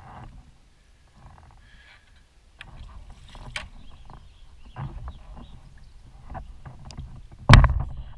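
Paddling a kayak: water splashing and scattered light knocks against the hull. Near the end, a loud thump as the kayak comes up against a dock.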